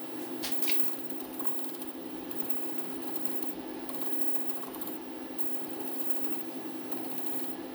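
Milling machine table traversing under motor drive while being jogged into position, a steady motor hum.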